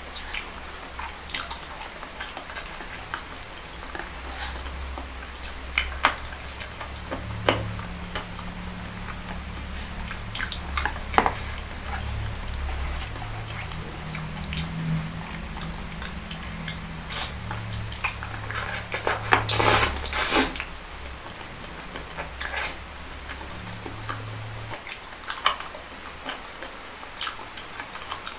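Close-miked mouth sounds of chewing soft boneless chicken feet and meatballs in a thick spicy sauce, with scattered small clicks and smacks, and chopsticks clicking against the dish. Two loud bursts come close together about two thirds of the way in.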